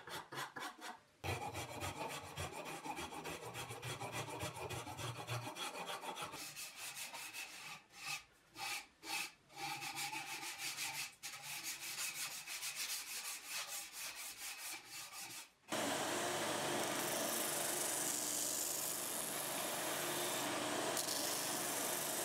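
Shinto saw rasp filing a curved hardwood mallet handle in quick rhythmic strokes, with a few short pauses. About three-quarters of the way through it cuts off suddenly and a spindle sander takes over, running with a steady whirr.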